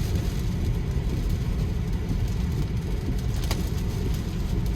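Steady low rumble of tyre, road and wind noise inside a Tesla driving through a heavy rainstorm, with one short click about three and a half seconds in.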